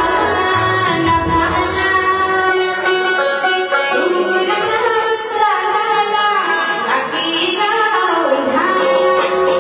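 A girl singing a song with instrumental accompaniment, her voice gliding through long melodic phrases.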